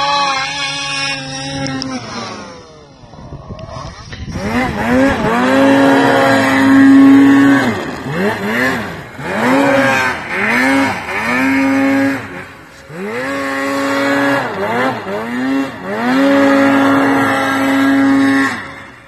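Snowmobile engines revving hard in deep snow. The first engine's pitch falls away over the first few seconds. After a cut, another sled revs up, holds high and drops back, about six times over.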